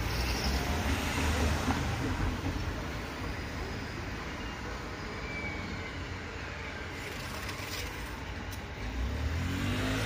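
Steady outdoor vehicle rumble. About nine seconds in, a low hum with several steady tones sets in and grows louder.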